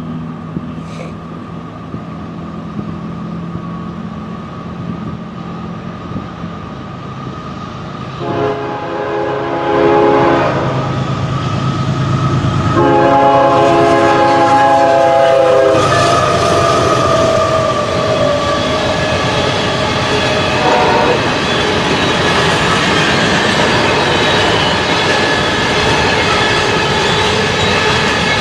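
BNSF diesel train approaching with a low engine hum, then sounding its multi-tone horn twice, the second blast a little longer. The locomotive passes close with a falling pitch, and the railcars then roll by in a steady loud rumble with clickety-clack.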